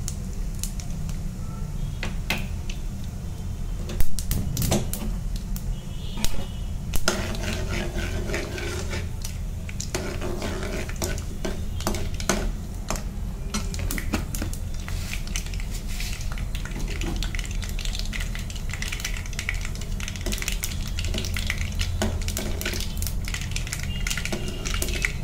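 Mustard and cumin seeds popping and crackling in hot oil in a kadai, as a steady patter of sharp clicks. A perforated steel skimmer ladle scrapes and clinks against the pan, with the loudest knocks about 4 and 6 seconds in. A steady low hum runs underneath.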